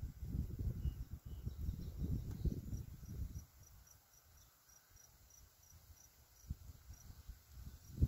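Wind buffeting the microphone in gusts, easing off after about three seconds. Over it an insect chirps faintly and evenly, high-pitched, about three chirps a second.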